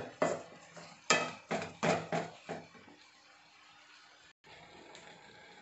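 Metal kitchenware clattering, with about six sharp clanks and clinks in the first two and a half seconds as an aluminium pot lid is handled to cover the pan. After that only a faint steady hum remains.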